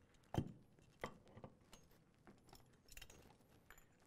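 Scattered light clicks and knocks of metal parts being handled as an M2 .50-caliber machine gun bolt is taken apart, with one louder knock about half a second in.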